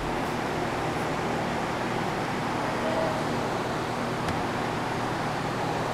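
Steady background hiss of a large indoor exhibition hall, with faint voices murmuring in the distance.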